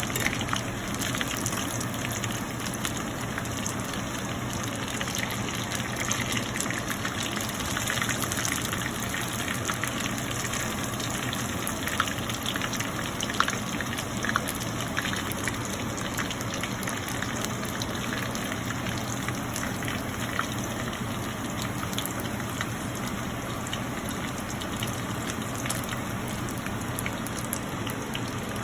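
Chicken lollipops frying in hot oil: a steady sizzle with scattered pops and crackles.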